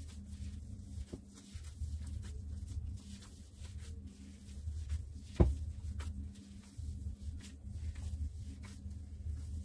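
Crumbly semolina-and-flour dough being rubbed and squeezed by gloved hands in a glass bowl: soft, scratchy rustling over a steady low hum, with one sharp knock about halfway through.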